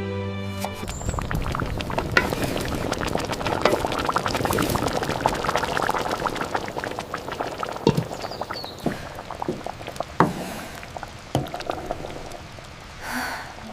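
Liquid bubbling and popping in a cooking pot, a dense crackle at first that thins to scattered separate pops after about eight seconds.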